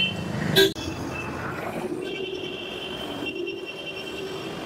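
Street traffic noise: a steady hum of vehicle engines and road noise. It drops out sharply for an instant just under a second in, then carries on evenly.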